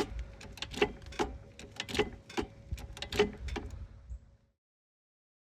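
Metallic clicking, about three clicks a second, as the car's lug nuts are being loosened and taken off the wheel. It cuts off to silence about four and a half seconds in.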